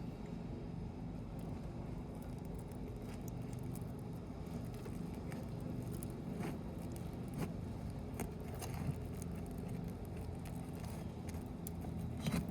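A steady low rumble with a few faint scrapes and clicks from work on asphalt roof shingles.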